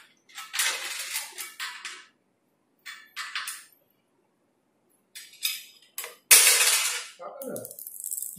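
Furniture parts being handled during table assembly: intermittent bursts of scraping and rustling, with one sharp knock about six seconds in.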